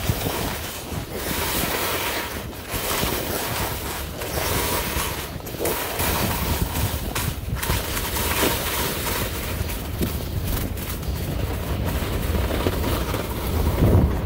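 Skis hissing and scraping over packed snow during a downhill run, with wind buffeting the microphone; the hiss briefly drops out every second or two.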